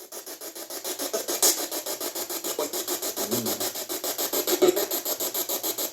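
Spirit box sweeping through radio stations: fast chopped static at about eight pulses a second, with a brief scrap of a radio voice or tone twice.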